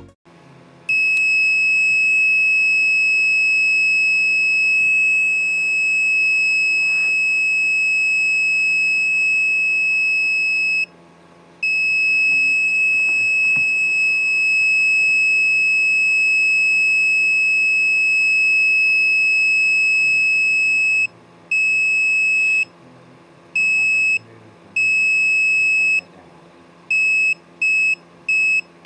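Buzzer of a BC547 transistor security alarm circuit sounding a steady, high-pitched tone. It switches on about a second in and holds for long stretches, then is cut off and restarted several times in shorter beeps of uneven length near the end.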